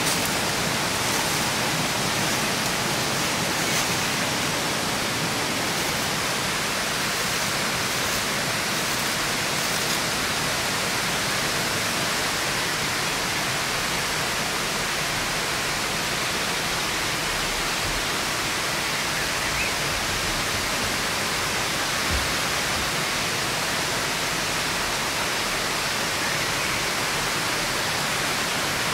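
Steady rushing of flowing water, an even unbroken wash of sound.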